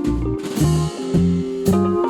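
Background music: an instrumental track with bass, guitar and a drum kit keeping a steady beat.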